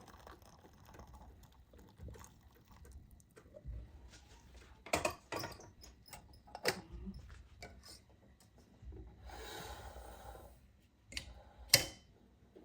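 Kitchen handling sounds while the boiled milk is strained: a few scattered clinks and knocks of pan, strainer and cup, the loudest near the end, and a soft rush of liquid pouring for about a second and a half, two-thirds of the way through.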